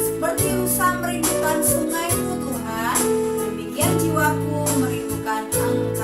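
A children's worship song with a singing voice over a band of guitar, bass and drums, with a steady beat.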